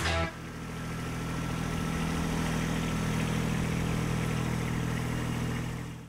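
Kubota compact tractor's diesel engine running steadily, building up over the first second and fading out near the end.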